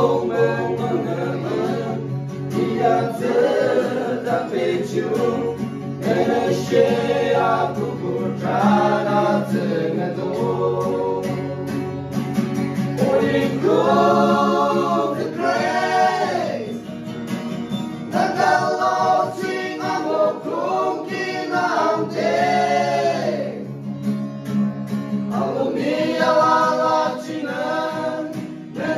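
Small group of singers singing a song together in phrases separated by short pauses, accompanied by an acoustic guitar.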